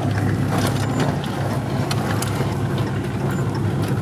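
A vehicle engine running steadily at idle, a low even hum with a few faint clicks over it.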